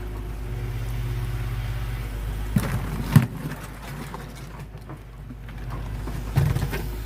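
Excavator's diesel engine running, its pitch rising under load for a couple of seconds before easing off, with two sharp knocks about two and a half and three seconds in and another thump near the end.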